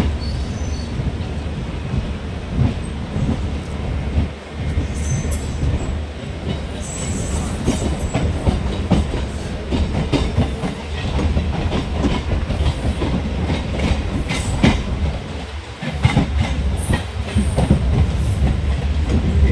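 Express passenger train's coaches rolling past on the track: a steady low rumble with a run of clicks and knocks from the wheels over rail joints, and a few brief high wheel squeals near the middle.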